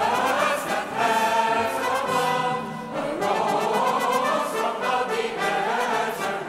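Background music: a choir singing sustained lines with orchestral accompaniment.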